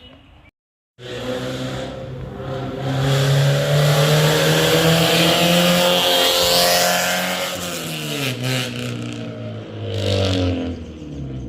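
A loud car driving past at speed, its engine revving hard: the exhaust note climbs and holds, then drops in pitch as it goes by, with a brief surge again near the end.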